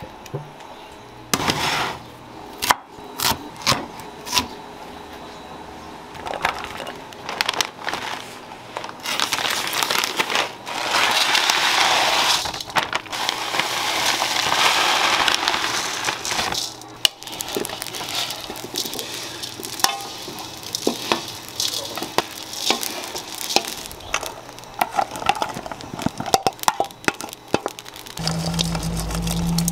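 Tiny dried anchovies poured into a wok, a dense rustling pour lasting several seconds in the middle, with scattered clicks and taps of kitchen utensils before and after.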